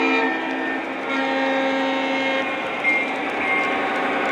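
Model diesel locomotive's built-in sound system blowing its horn: a blast that ends just after the start and a longer one about a second in, over the steady running noise of the train on the track, which grows louder near the end as it passes close.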